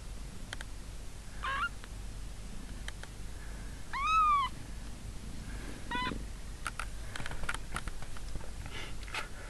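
Two-day-old kittens mewing: three short, high squeaky calls, the loudest an arched one about four seconds in. After them come a few light clicks and rustles as the kittens shift about.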